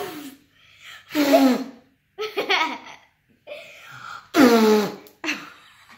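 Laughter in three short bursts with pauses between them, the loudest about four and a half seconds in.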